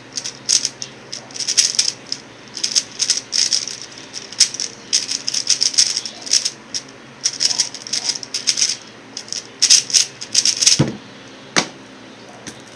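X-Man Tornado V1 3x3 speedcube being turned rapidly: fast bursts of plastic clicking and clacking from the layer turns during a speed solve. Near the end, two thuds as the cube is set down on the desk.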